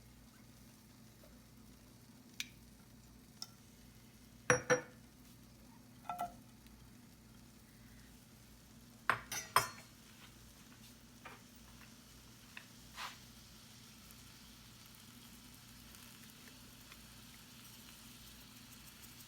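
A utensil knocking and clinking against a pan as shredded chicken is stirred in a little water, about a dozen scattered taps. A faint sizzle builds slowly in the second half as the pan heats.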